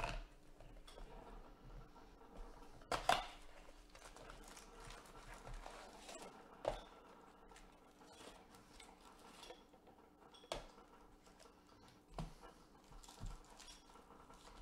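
Foil-wrapped trading-card packs and a cardboard blaster box being handled: faint rustling and crinkling of foil wrappers, with sharp taps and clatters every few seconds as packs are pulled out and stacked. The loudest clatter comes about three seconds in.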